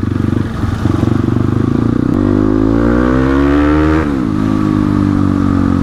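Crossfire RM250 dirt bike's single-cylinder engine on the move, heard from the rider's seat. It pulses unevenly at low revs for about two seconds, then climbs steadily in pitch as it accelerates, drops sharply about four seconds in and settles into a steady run.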